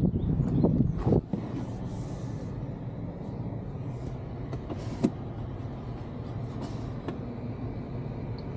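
Peugeot 408 driver's door shutting with a solid thud about a second in, after rustling as someone settles into the seat; the outside noise cuts off at once. A steady low hum follows in the closed cabin, with a couple of light clicks.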